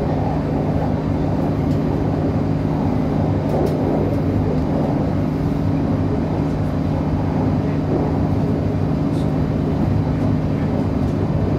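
Inside a CAF-built Northern Ireland Railways diesel multiple unit running at speed: a steady low drone from the underfloor diesel, over a constant rumble from the wheels on the track.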